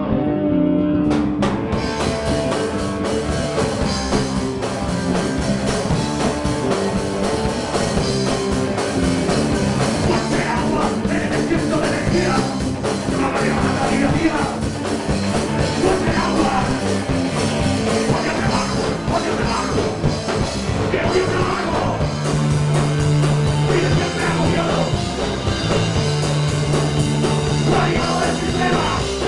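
Punk rock band playing live through a club PA: electric bass and drum kit, with a singer shouting the vocal into a microphone. The full band comes in about a second in and plays on loud and steady.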